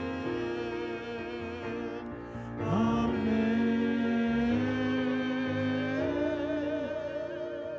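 Church choir music: a man and a woman singing with piano, holding long notes. A voice swoops up onto a sustained note nearly three seconds in, and the woman's voice holds a long final note with vibrato near the end before the music fades.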